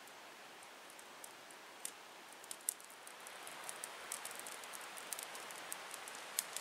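Smoky campfire in a steel fire ring crackling, a steady hiss with scattered sharp pops that grows louder about three seconds in.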